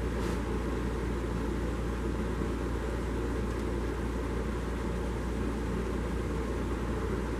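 Steady drone of a workshop machine running, with a low hum beneath it, and a faint tick near the start.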